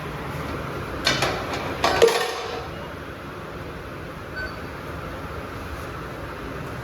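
A few sharp metallic clinks and knocks, about four in quick succession between one and two seconds in, from metal tyre-shop tools and wheel parts being handled during wheel balancing, over a steady background noise.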